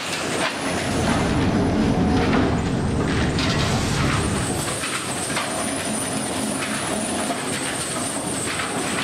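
Metal rolling mill running, its big rollers and flywheel drive giving a steady mechanical rattle and clatter as sheet metal is pressed through.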